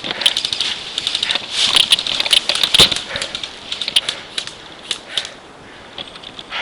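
Airsoft gunfire: rapid, irregular clicking and rattling of guns shooting and plastic BBs striking close around the player, dense for about five seconds, then thinning to a few scattered clicks.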